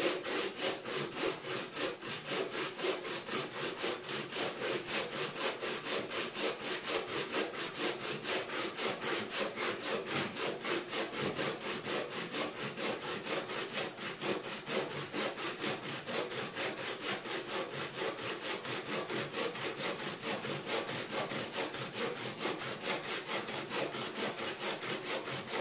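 A 15-inch Swedish steel buck saw blade cutting through a thick maple log with long back-and-forth strokes, rasping steadily at about two strokes a second.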